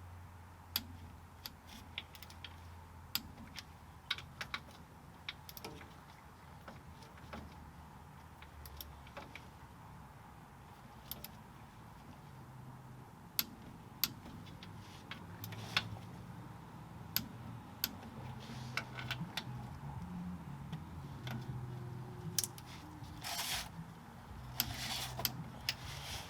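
Irregular light metallic clicks and clinks of hand tools on bolts and metal parts, with two short rasping bursts near the end.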